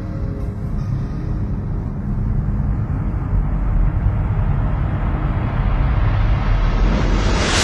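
Cinematic trailer sound effect: a deep rumble that swells slowly, with a hissing whoosh rising in pitch over the last second or so into a sudden hit at the very end.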